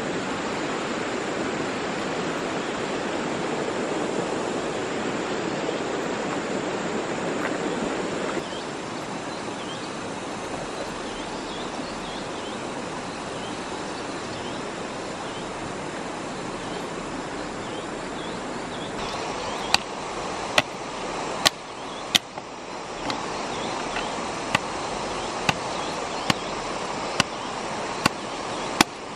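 A river running over rocks, a steady rush that drops a little about a third of the way in. From about two-thirds of the way in, a machete blade chops at a wooden stick, sharp strikes about one a second.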